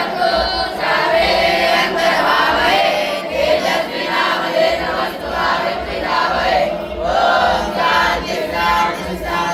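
A group of voices chanting together in repeated phrases.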